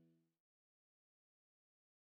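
Near silence: the last trace of fading background guitar music dies away about half a second in, then dead digital silence.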